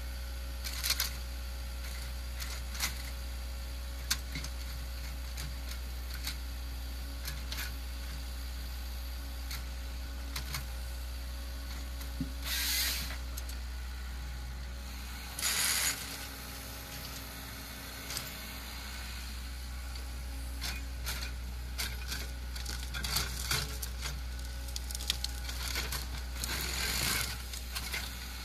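Heavy forestry machine running steadily with a low engine hum, scattered clicks and knocks, and two short hissing bursts about 13 and 16 seconds in.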